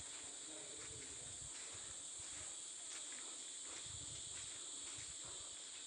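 Steady high-pitched drone of an insect chorus in the background, with irregular low rumbles on the microphone.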